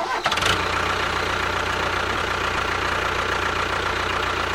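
Small engine of a miniature DIY bulldozer running steadily at an even idle.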